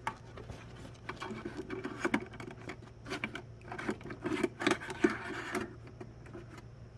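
Handling of the Roomba i6+ self-emptying base's dirt bag and lid: a run of irregular plastic clicks, knocks and rubbing that thin out after about five seconds, over a steady low hum.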